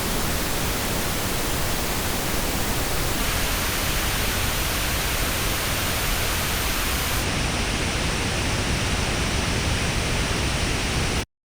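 Pink noise test signal played through Apple AirPods earbuds and recorded in an artificial ear simulator. It holds a steady level. About three seconds in its tone turns brighter, and about seven seconds in the highest treble drops away. It stops abruptly shortly before the end.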